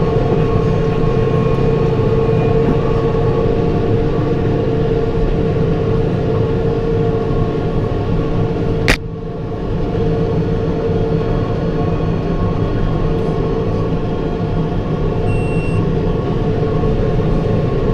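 Tractor engine running steadily under load while driving a New Holland round baler, a constant drone with a strong hum. About halfway through there is one sharp click, after which the sound dips briefly and comes back up.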